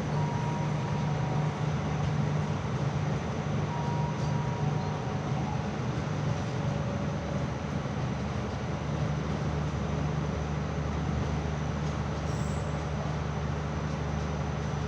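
Train running, a steady low drone and rumble that holds even throughout.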